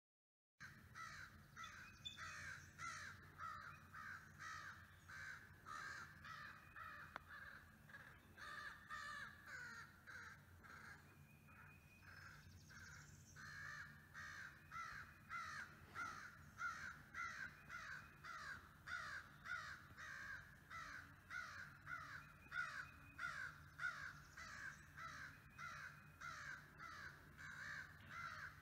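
A crow cawing rapidly and without let-up, about three to four harsh caws a second, starting about half a second in: mobbing calls aimed at a pair of bald eagles.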